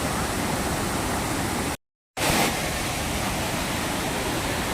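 Steady rushing roar of the Hogenakkal waterfalls, cut off by a brief silent gap about two seconds in, then resuming at once.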